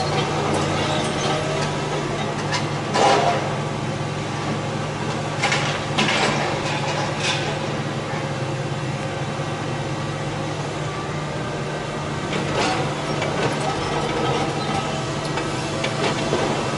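Diesel engine of a long-reach demolition excavator running steadily, with a few short clatters and crashes of debris, the loudest about three seconds in.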